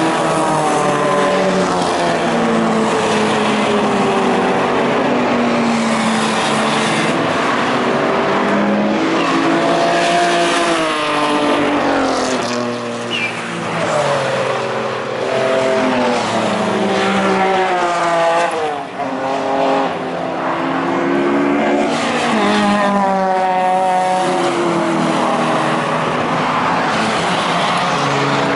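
Classic cars' petrol engines revving hard on a track, the pitch climbing and dropping again and again through gear changes as cars pass by.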